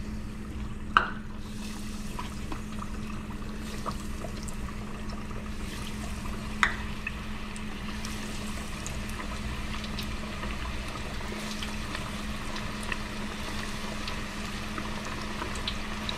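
Breaded whiting fillets bubbling and sizzling steadily in an electric deep fryer's oil, heated to 375°F, with a low steady hum underneath. Two sharp clicks, about a second in and again midway.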